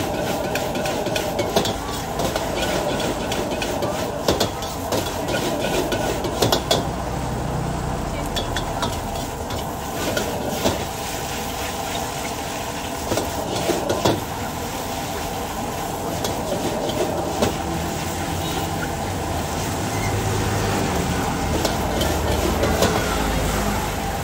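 Stir-frying in a wok: a metal ladle scraping and knocking against the wok at an irregular pace, with the food sizzling, over a steady rushing background from the gas wok burner.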